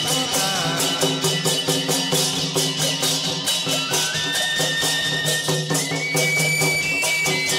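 Instrumental chầu văn (hát văn) ritual music: a quick, steady percussion beat over a low drone, with high held notes that step upward about halfway through.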